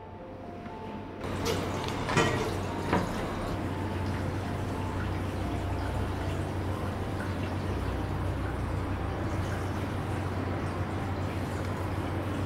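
Olive oil poured from a bottle into a metal spoon and drizzled onto a raw fish fillet on parchment paper, with two light clinks of bottle and spoon about two seconds in. A steady hiss and low hum run underneath.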